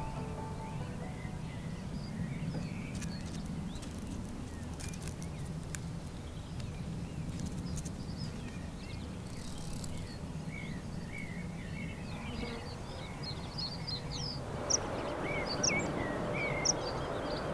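Outdoor marsh ambience: a steady low rumble under many small, faint bird chirps. About fifteen seconds in, a hiss rises and the chirps grow louder and more frequent.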